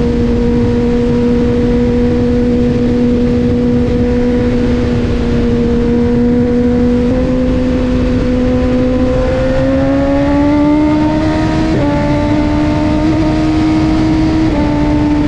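BMW S1000RR's 999 cc inline-four engine running through an Austin Racing GP1R full-Inconel exhaust, holding a steady high engine note. About two-thirds of the way through the pitch climbs as the revs rise, with a couple of small sudden pitch changes near the end.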